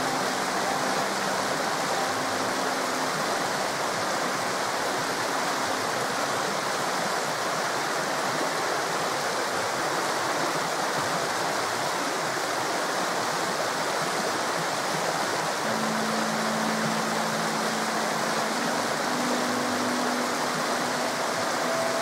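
Forest river flowing, a steady continuous rush of water.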